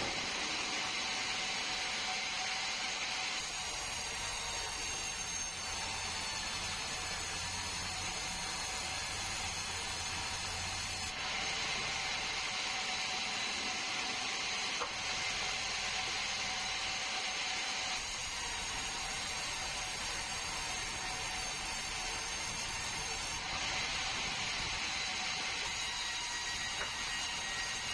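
Sawmill saw running steadily while cutting bengkirai hardwood, with a harsher cutting sound that comes in three stretches of a few seconds each as the blade works through the log.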